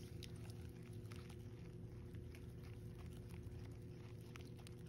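Silicone-coated whisk stirring egg whites and sugar in a glass bowl: soft, irregular wet clicks and ticks of the whisk against the glass, several a second, over a steady low hum. The whites are being stirred slowly to dissolve the sugar without beating in air.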